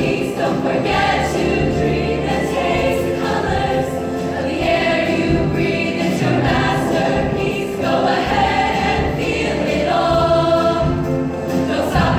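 All-female show choir singing with music during a choreographed number.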